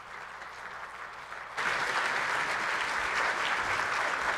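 Audience applauding, the clapping growing sharply louder about a second and a half in.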